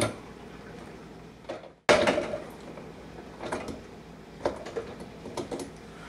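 Dishwasher top rack loaded with plastic cups being handled and slid out, giving a few faint, scattered knocks and clinks against a low background hum.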